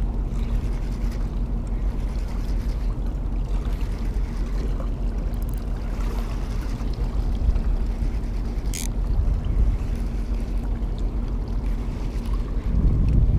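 Steady low rumble carrying a constant hum, as from a distant engine, with a single sharp click about nine seconds in.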